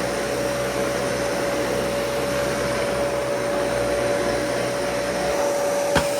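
Dyson Cinetic Big Ball vacuum cleaner running with a steady whine. Its low rumble drops away about five seconds in, and a single sharp knock comes near the end.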